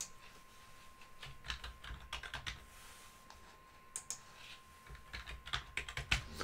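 Faint typing on a computer keyboard in two short runs of keystrokes with a pause between them, as a password is entered and then confirmed.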